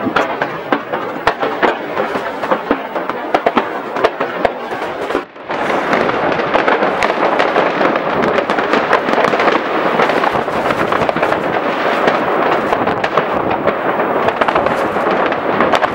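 Many fireworks and firecrackers going off at once: a dense crackle of overlapping bangs and pops, with sharp individual reports standing out in the first few seconds. It breaks off for a moment about five seconds in, then carries on as a thicker, steadier crackle.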